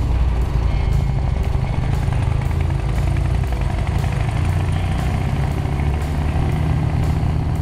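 BMW air-cooled flat-twin motorcycle engine running steadily under way, heard from on board the bike.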